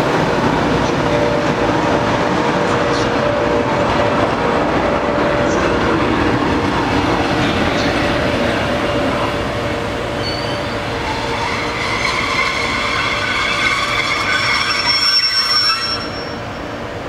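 Train hauled by an FS E.652 electric locomotive rolling slowly through a station with a steady rumble of wheels and running gear. From about ten seconds in, high-pitched wheel squeal builds up, then cuts off suddenly near the end.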